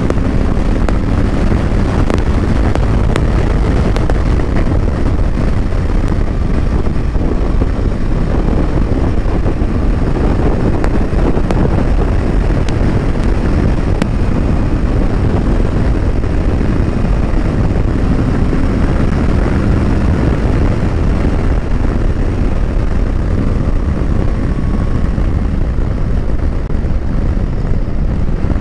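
Moto Guzzi V85 TT's air-cooled transverse V-twin pulling under acceleration through the gears while riding, mixed with steady wind rush over the microphone.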